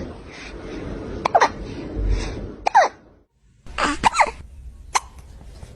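A kitten hiccuping: about four short, sharp hiccups roughly a second apart, each with a brief squeaky note that falls in pitch.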